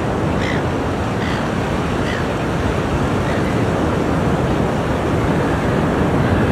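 Ocean surf washing steadily on a shore, a dense continuous rush of water with a deep rumble underneath. A few faint short high sounds are heard over it in the first two seconds.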